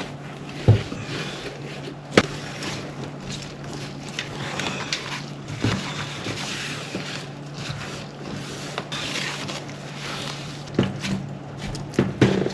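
Work and handling noise: a few sharp knocks and clicks, the loudest about a second and two seconds in, over a steady low hum and hiss, with more knocks near the end.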